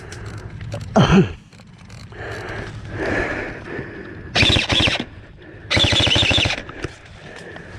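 Airsoft rifle firing two short full-auto bursts of rapid clicking shots, about half a second apart past the middle. A brief falling shout is heard about a second in.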